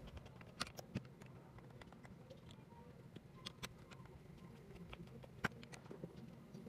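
Faint, scattered light clicks and taps of a small metal hand tool and fingers working at a motorcycle engine's stator plate, a few isolated ticks several seconds apart.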